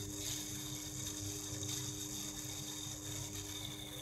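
Powered-up Lenze EV751 motor drive board giving a steady electrical hum made of several low tones, with a thin high whine and hiss above it.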